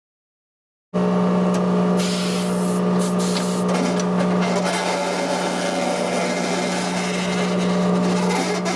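A steady machine hum with a constant low pitch, starting abruptly about a second in and running evenly.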